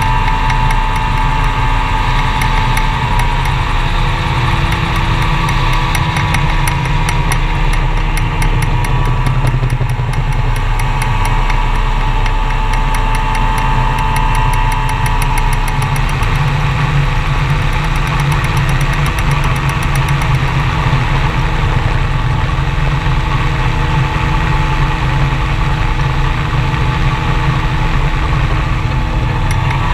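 Open-cockpit gyroplane's engine and propeller running steadily in flight, heard from an onboard camera.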